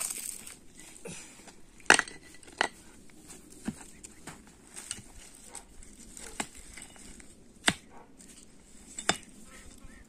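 Rocks being handled and set down around a fire pit: a string of sharp clacks and knocks at irregular intervals, the loudest about two seconds in, with lighter rustling of dry twigs and ash between them.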